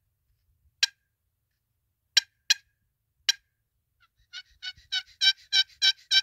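Turkey call imitating a hen: four short, sharp clucks, then from about four seconds in a quick run of yelps, about three a second, growing louder.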